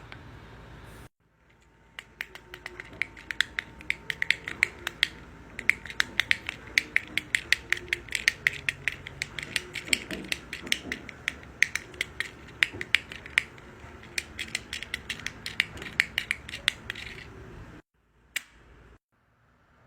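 A fidget toy being clicked over and over, sharp uneven clicks several times a second, stopping suddenly near the end.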